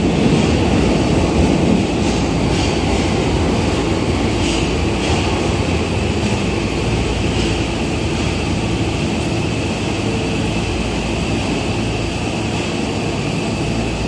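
A Tokyo Metro 2000-series subway train standing at an underground platform, its onboard equipment running with a steady hum and a thin high whine, with a few faint clicks.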